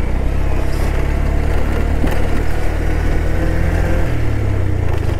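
Bajaj Pulsar motorcycle's single-cylinder engine running at steady low revs, its note shifting slightly about four seconds in.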